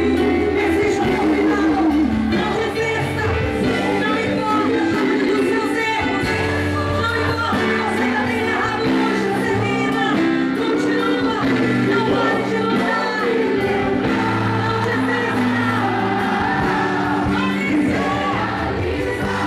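Live band playing a pop-style worship song, with a woman singing lead into a microphone over a steady bass line.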